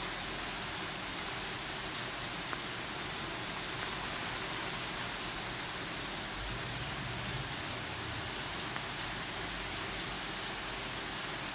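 Steady hiss of heavy rain falling on rooftops and tree foliage, with a few faint ticks and a brief low rumble about seven seconds in.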